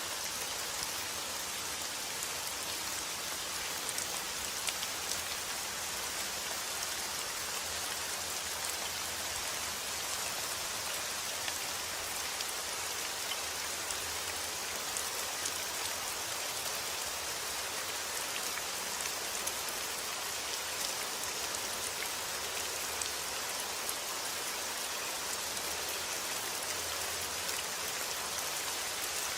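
Steady rain falling, an even hiss with many fine drop ticks and no thunder.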